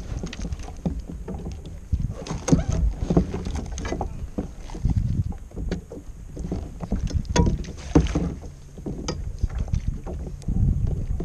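Irregular knocks, clicks and rattles of a fishing rod, reel and gear against a plastic kayak as the angler pumps the rod while fighting a fish, over a steady low rumble of wind and water.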